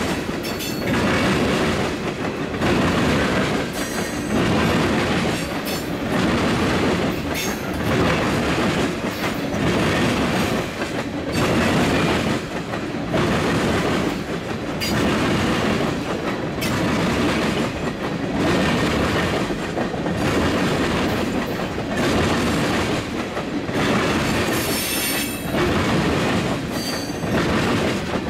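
Freight train tank cars rolling across a railroad diamond crossing, their wheels clacking in bursts, one burst for each passing truck, about every second and a half. Over this runs the steady rumble of the cars, and a brief high wheel squeal comes a few seconds before the end.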